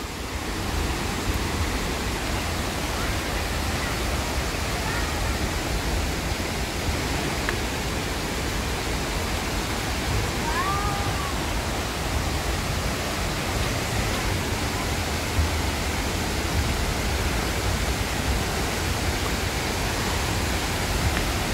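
Steady rush of a large waterfall and the white-water river below it, an even, unbroken noise of falling and churning water. About halfway through, a brief faint high call sounds once over it.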